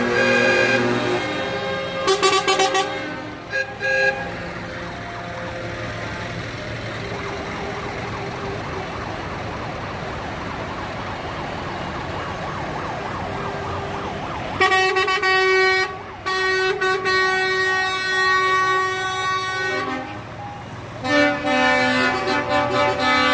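Lorries passing in a convoy, sounding their air horns in long blasts: several horns in the first few seconds, then a steady passing diesel engine and tyre rumble, then a long horn blast about fifteen seconds in and another near the end.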